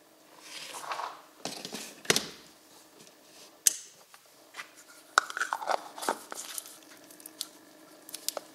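Plastic cups and a sample jar handled by gloved hands: a short pour of engine oil from a plastic cup into an electric kettle near the start, then several sharp plastic clicks and taps with scraping and rustling between them.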